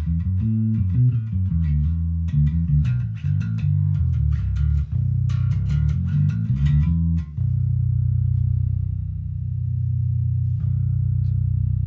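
Squier six-string electric bass played with the fingers: a run of changing low notes, then from about seven seconds in a single low note left ringing.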